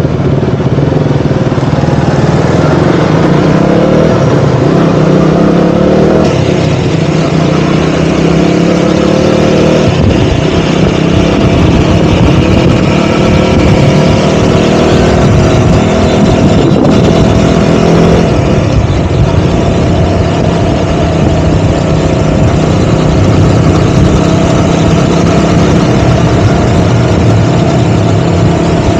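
KTM Duke 200's single-cylinder four-stroke engine under way on the road, its revs rising and falling several times in the first ten seconds or so as it accelerates and shifts, then holding steadier while cruising.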